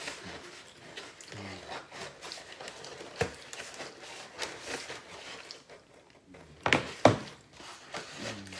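Close-up eating sounds: chewing and mouth noises, with a few sharp clicks, the loudest two close together about seven seconds in, and a faint voice murmuring briefly.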